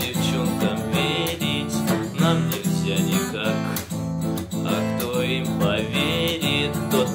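Acoustic guitar strummed in the six-stroke pattern ("бой шестёрка"), a steady repeating rhythm of chords with no singing.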